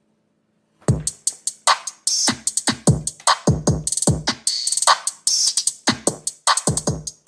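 Hip hop beat played loud through a JBL Xtreme 2 Bluetooth speaker at about 80% volume in a bass test: deep bass hits that drop in pitch, with crisp drum-machine hi-hats and snares. The beat starts about a second in.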